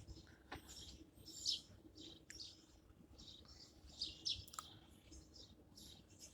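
Birds chirping: short, high, downward-sliding chirps repeated irregularly, faint, with a few light clicks among them.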